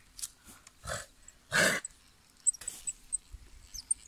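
Two short yelp-like calls, the louder one about one and a half seconds in, then a few faint clicks and high bird chirps.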